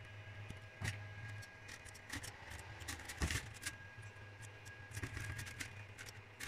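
Scattered small clicks and scrapes of stiff plastic 3D-printer filament being handled and pushed into the printer's metal extruder, over a steady low hum from the powered printer.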